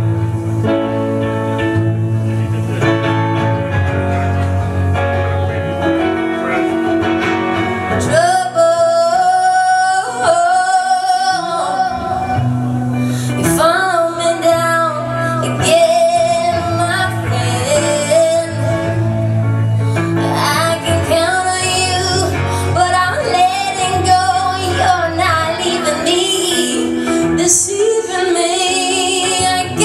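Live pop song: a woman singing over an electric guitar with low bass notes underneath. The first eight seconds or so are instrumental, then her voice comes in and carries the melody.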